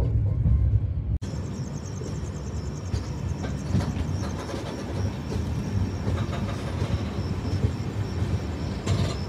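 A moving passenger train's wheels running on the rails, a steady rumble with a rushing noise over it, heard from the coach doorway. There is a short edit about a second in.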